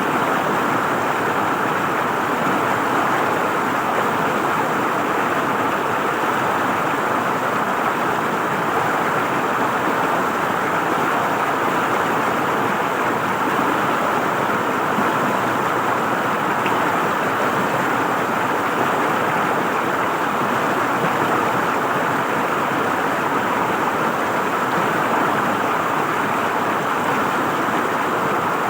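River water flowing and gurgling over stones, a steady, even rush.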